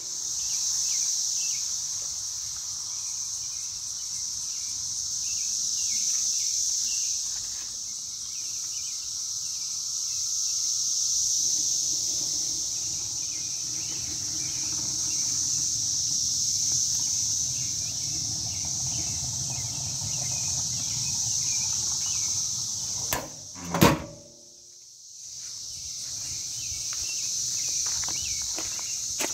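Steady high-pitched insect buzzing in the background, with a single sharp slam about 24 seconds in as the Volkswagen Beetle's rear engine lid is shut.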